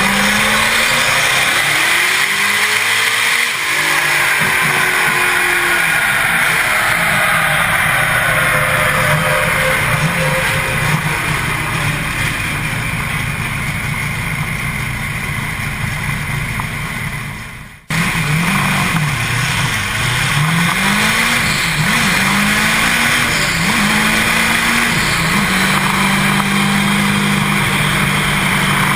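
Twin-turbo 442 cubic-inch small-block Chevy trophy truck engine running loud and hard on a chassis dyno. Its sound sags and drops out briefly about two-thirds through, then the revs swing up and down in quick blips before holding steady.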